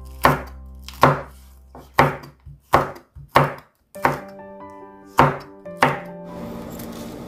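Chef's knife slicing green and red chili peppers on a bamboo cutting board: about eight sharp knocks of the blade meeting the board, roughly one every three-quarters of a second.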